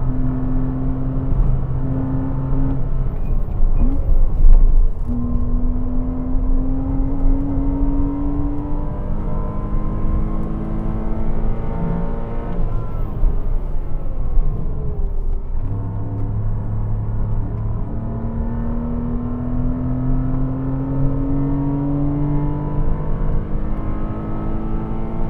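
Porsche Cayman 987's 2.7 flat-six pulling hard under load, revs rising through the gears with an upshift a few seconds in. About halfway through, the revs fall away for a few seconds off the throttle, then the engine pulls and rises again.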